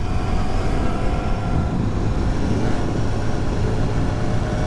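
Sport motorcycle engine running at a steady speed while riding, mixed with wind noise on the helmet-mounted microphone.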